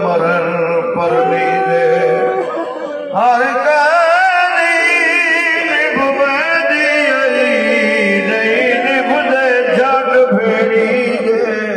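Background music: a solo voice singing a slow, wavering, ornamented melody, with a short break about three seconds in.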